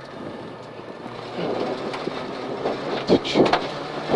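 Citroën Saxo rally car heard from inside the cabin at speed: engine running hard under the din of tyres, road noise and cabin rattles. It gets louder about a second in, with a few sharp knocks around three seconds in.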